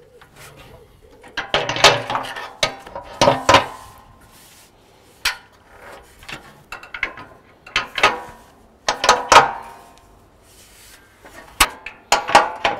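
Aluminium pergola louvres being slotted onto their roller brackets one after another: repeated metallic clanks and rattles, in clusters a second or two apart.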